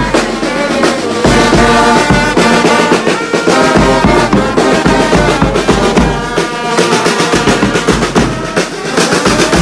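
Live brass band playing: a trumpet and larger brass horns play held notes over the beat of a bass drum.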